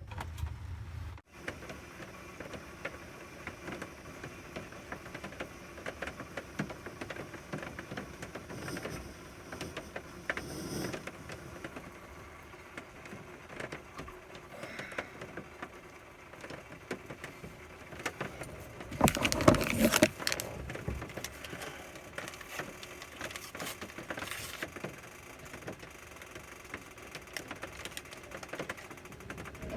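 Rain falling, a steady patter of many small drop ticks. About two-thirds of the way through, a louder rustling knock lasts about a second.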